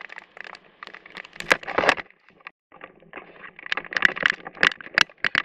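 Dense, irregular crackling and ticking of heavy rain and wind striking the microphone. It cuts out briefly about two and a half seconds in and grows busier after.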